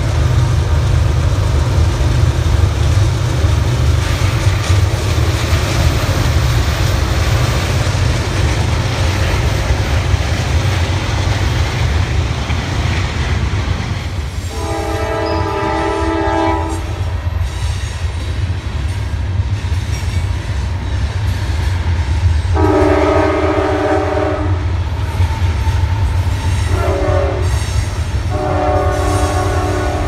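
Diesel freight locomotive's multi-chime air horn sounding two long blasts, a short one and a long one, the pattern locomotives blow for a grade crossing. Under it runs the steady low rumble of the passing freight train, with wheels clattering on the rails.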